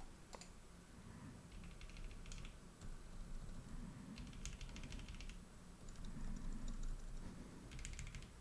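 Silenced mechanical keyboard switches with keycaps fitted, pressed repeatedly by finger in four short runs of rapid, quiet clicks.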